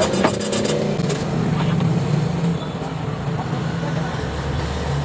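A motor vehicle engine idling steadily close by, a low hum, with a deeper rumble joining about four seconds in.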